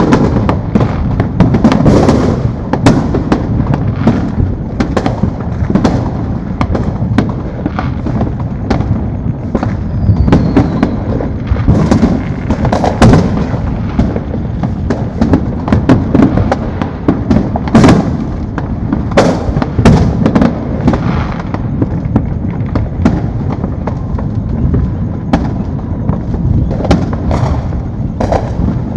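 Many consumer fireworks going off at once across a city: a constant low rumble of distant booms with frequent sharp, close bangs and crackles on top.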